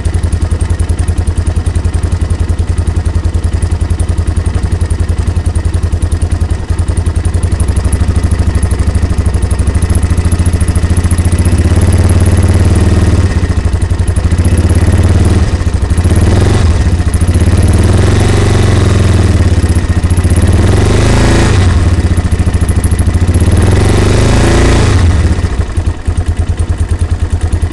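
Yamaha Warrior engine idling steadily, then revved in about four throttle blips in the second half, dropping back to idle near the end.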